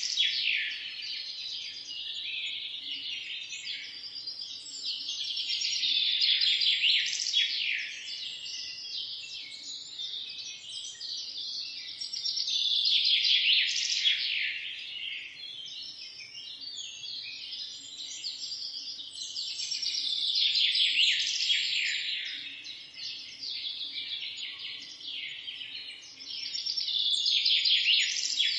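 Morning chorus of many small birds chirping and trilling together, swelling louder and fading back in waves about every seven seconds.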